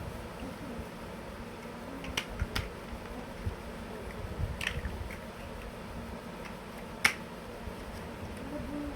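Plastic toy building blocks clicking and snapping together a few separate times, the sharpest about seven seconds in, over a faint steady hum.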